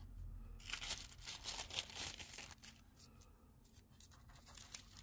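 Carbon paper being slid out and lifted away: a dry paper rustle from about half a second in until about two seconds in, then only faint handling ticks.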